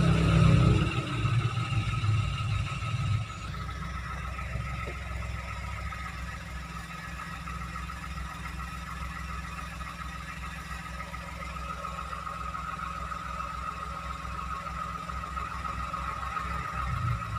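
Toyota Agya small car engine running, louder for about the first three seconds, then dropping suddenly to a steady idle.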